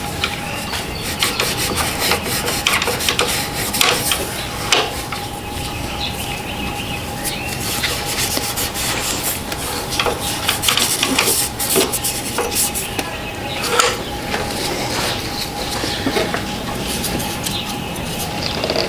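Hand scrubbing and wiping of a dirty throttle body, with irregular rubbing strokes and small clicks against the metal.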